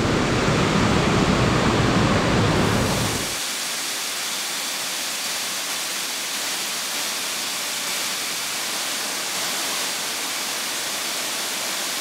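Waterfall water rushing and splashing into a pool, a steady loud hiss. About three seconds in, the deep rumble underneath drops away suddenly, leaving a lighter, higher hiss of falling water.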